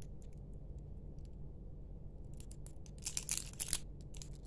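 Thin clear plastic wrapping crinkling as it is peeled off AA batteries: a few faint ticks at first, then a burst of crinkling from a little over two seconds in, loudest around three seconds in, with a short last crackle near the end.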